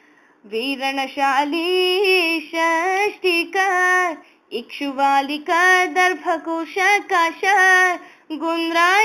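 Woman singing a Sanskrit verse in melodic phrases of held, sliding notes, pausing briefly a little past four seconds and again near the end.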